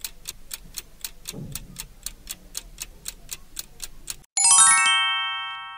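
Quiz countdown timer sound effect: a clock ticking steadily, about four to five ticks a second, for about four seconds. Near the end the ticking stops and a bright chime of several bell tones sweeps in from high to low and rings away, marking time up.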